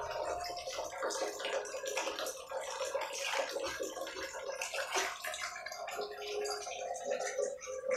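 Small water splashes and drips in a plastic tub as an otter pup climbs in and out of it.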